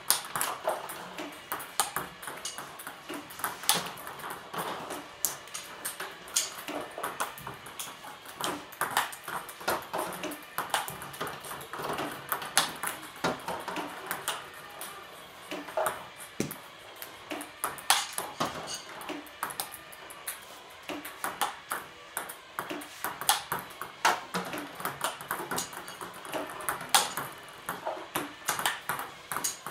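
Table tennis ball clicking off paddles and the table during play, in quick, irregular strikes, several a second.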